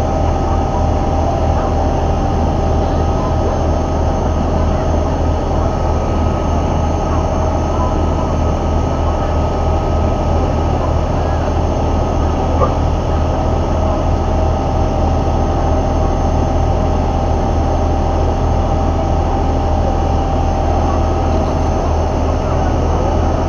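River tourist boat under way: its engine drones steadily with a strong low hum and a few steady higher tones, over the rush of churning water along the hull.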